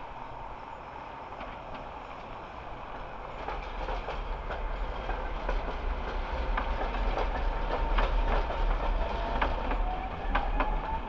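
A Tatra T3 tram set passing close by on curved track, its wheels clicking and knocking over rail joints and points as it comes nearer. A thin whine rises in pitch near the end.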